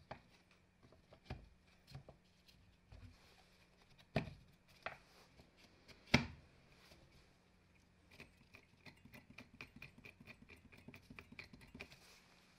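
Light knocks and clicks of a drill's motor and metal gearbox assembly being handled and set into its plastic housing, the loudest knock about six seconds in. In the last few seconds comes a quick run of light clicks.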